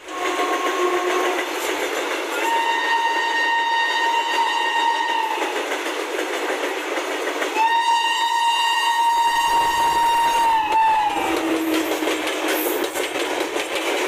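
Two long blasts of a WAP5 electric locomotive's horn as it approaches the crossing, the second dropping in pitch at its end as the engine passes. Under the horn, a train of open freight wagons rolls by on the adjacent track with its wheels clattering over the rail joints, and a deep rumble comes in as the locomotive arrives.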